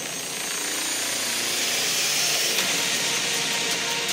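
A fishing reel on a heavy surfcasting rod being cranked to wind in line under load, a continuous rubbing whirr over a hiss of wind and surf.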